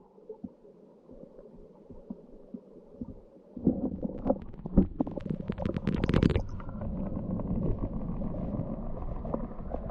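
Mountain stream water rushing, heard low and muffled. It is faint at first, gets suddenly louder about three and a half seconds in with some knocks, and has a brief brighter hiss around six seconds.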